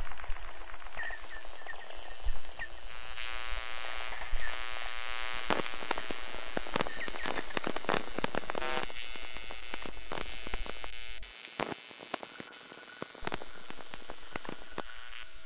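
Dense crackling and clicking noise, like static or rain. A buzzing tone runs through the middle, and a low hum cuts out about eleven seconds in.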